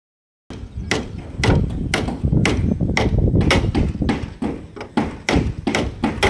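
Hand hammer striking a wooden formwork (shuttering) board, about two blows a second, over a low rumble.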